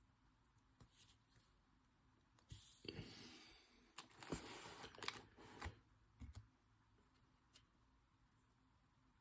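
Brief rustling and a few sharp clicks from trading cards and pack wrappers being handled, bunched in the middle of an otherwise near-silent stretch.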